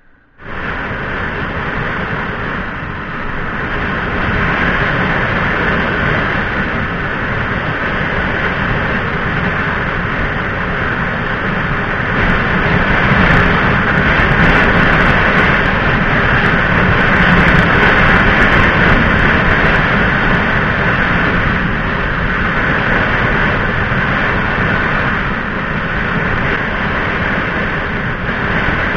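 Loud, steady rush of motorcycle riding noise at speed, muffled by the action camera's sealed waterproof housing, which keeps out much of the wind buffeting but dulls the sound. It starts abruptly just after the beginning and grows a little louder a few seconds in.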